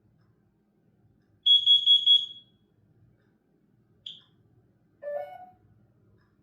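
Combination smoke and carbon monoxide alarm's piezo sounder giving four quick, loud high-pitched beeps, the four-beep carbon monoxide alarm pattern, during its self-test. A single short chirp follows, then a brief lower tone.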